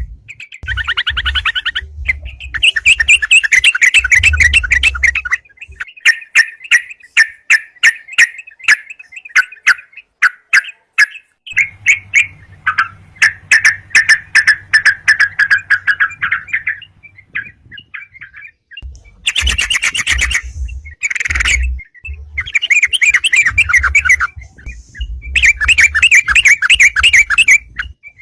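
Yellow-vented bulbul (crucukan) song: bursts of rapid, chattering notes in phrases of a few seconds each, separated by short pauses, in an agitated, challenging style.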